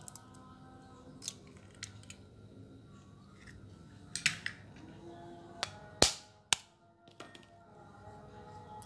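Chicken eggs tapped and cracked against the rim of a plastic mixing bowl: a few sharp cracks, a small cluster about four seconds in and the loudest about six seconds in, followed by a second one. Faint background music underneath.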